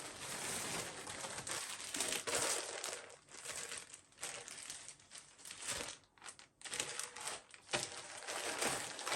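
Plastic packaging crinkling and rustling as a parcel is handled and opened. It runs steadily for about three seconds, then breaks into irregular bursts with short pauses.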